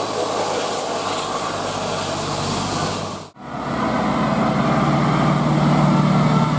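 Large bus engine running steadily. The sound breaks off for an instant about halfway through, then comes back louder, with a deeper engine hum.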